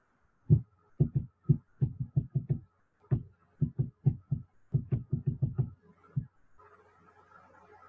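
A quick run of about twenty dull knocks or taps in uneven clusters, stopping a little after six seconds in.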